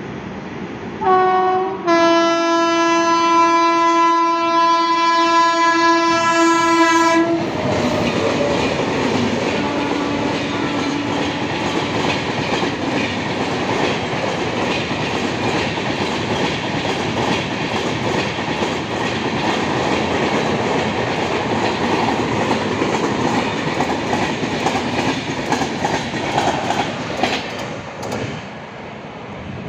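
Train horn sounds a short blast, then a long blast of about five seconds, as an express approaches at about 100 km/h. The train then runs through at speed: a steady rush of wheels on rail with rapid clickety-clack as the coaches pass, falling away near the end as the last coach goes by.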